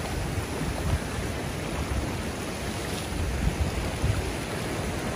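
Ocean swell surging and washing over a rock ledge, with wind buffeting the microphone as a steady low rumble.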